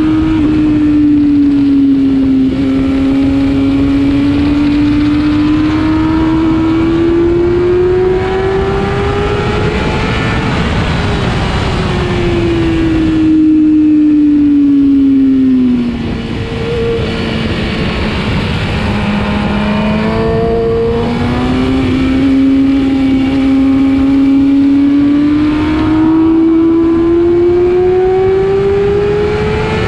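Motorcycle engine at track speed, heard from the bike itself with heavy wind rush on the microphone. Its pitch climbs steadily for about ten seconds, falls away for a few seconds around the middle, then climbs again toward the end.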